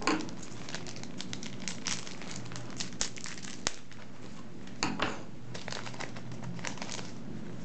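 Crinkling of a foil booster-pack wrapper and trading cards being handled, with irregular light crackles and a few sharper clicks.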